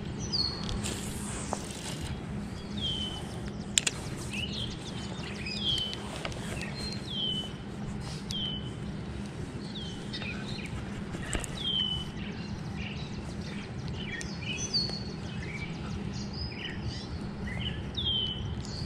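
Small birds singing outdoors: one bird repeats a short down-slurred chirp about every second and a half, with other scattered bird calls, over a steady low background hum.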